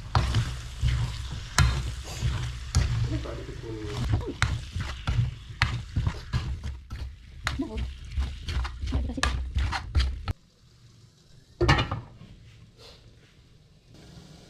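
Metal spatula scraping and knocking in a pan as chopped octopus is stir-fried in spice paste, sizzling under the strokes. A low rumble cuts off about ten seconds in, and a single loud knock follows.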